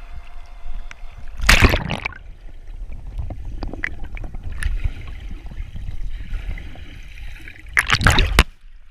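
River water sloshing and gurgling around a camera dipping into and moving under the surface, with a low rumble of water throughout. There are two loud splashing bursts, about a second and a half in and near the end.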